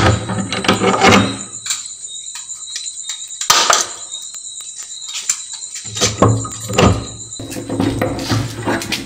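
Rusted iron barrel bolt on a wooden door being forced back and forth by hand: metal scraping and squealing, with a sharp knock about three and a half seconds in.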